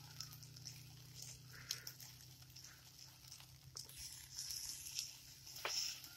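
A plastic rice paddle scraping and tapping in a non-stick frying pan while an egg and moringa omelette fries faintly, with the loudest scrape near the end. A low steady hum runs underneath.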